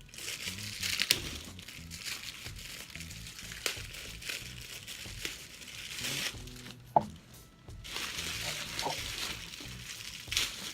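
Packaging crinkling and rustling in irregular crackles as a new handbag is handled and unwrapped, with faint music underneath.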